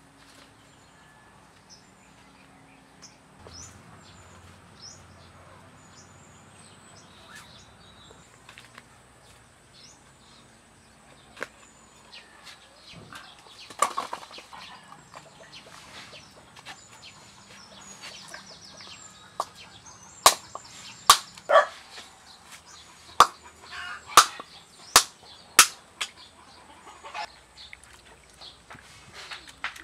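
Small birds chirping in the background of a rural yard. In the second half comes a run of about eight sharp knocks or slaps, a second or less apart, which are the loudest sounds.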